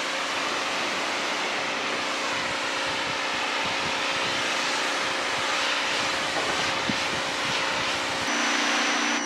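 Briggs & Stratton S1800 electric pressure washer spraying water onto a utility vehicle's dump bed: a steady hiss of spray over the washer's motor hum, which shifts slightly near the end.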